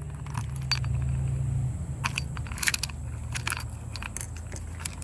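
Key on a key ring jangling and clicking in a locking gas cap as it is worked, with a series of sharp clicks and short rattles, most of them between about two and three and a half seconds in. A steady low hum runs underneath.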